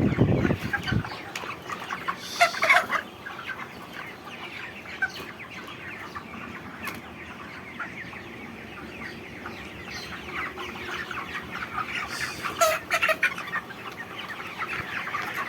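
A large flock of broiler chickens clucking and chattering together, many birds at once, with louder bursts about two and a half seconds in and again near the end. A low rumble fades out within the first second.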